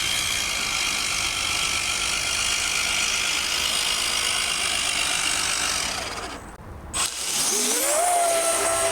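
Electric RC racing boat's motor whining at high speed over a hiss of water spray. The sound drops off briefly about six seconds in, then the motor spools back up with a rising whine that levels off.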